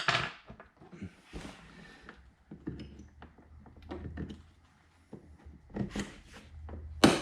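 Plastic trim tools prying at the interior door handle trim of a VW Passat, with scraping and sharp plastic snaps as the clips let go. The loudest snap is at the start and two more come near the end.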